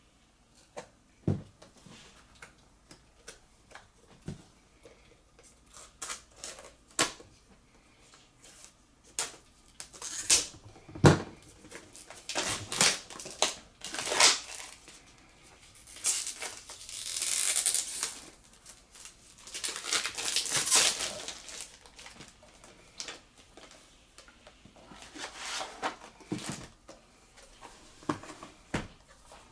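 Plastic shrink-wrap and packaging of a Blu-ray box set being torn open and handled: scattered clicks and taps, with two longer stretches of crinkling past the middle.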